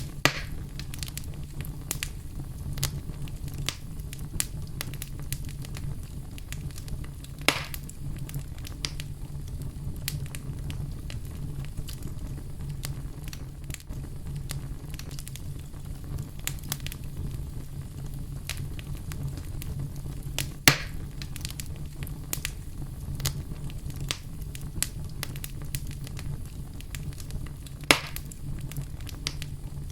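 Wood fire burning in a fireplace: a steady low rumble of flames with frequent small crackles and a few louder sharp pops.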